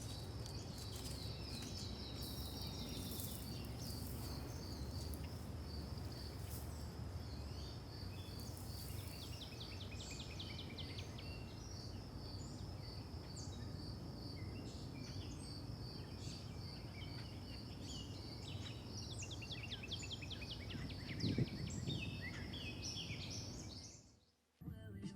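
Outdoor ambience: a high chirp repeating evenly about twice a second, like an insect, with scattered bird chirps over a low steady rumble. It cuts off abruptly near the end.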